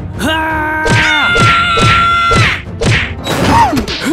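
Animated-cartoon sound effects: a long, held, pitched wailing cry that bends down at its end, over a run of heavy thuds about two a second, then a short falling squeal near the end.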